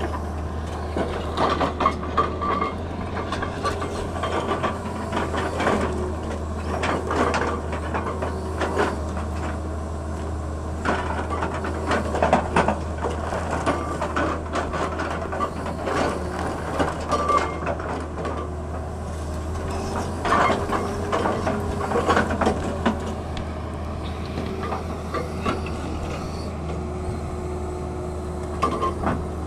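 Hydraulic rock breaker on a Tata Hitachi excavator hammering rock: rapid repeated blows that come in spells with short pauses, over the steady drone of the excavator's diesel engine.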